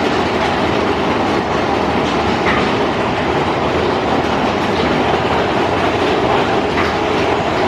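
Big Thunder Mountain Railroad mine-train roller coaster running along its track, heard from on board: a steady rumble and clatter of the cars' wheels on the rails.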